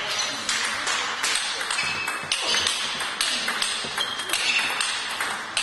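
Table tennis rally: a plastic ball clicking off the players' bats and bouncing on the table, a quick run of sharp ticks.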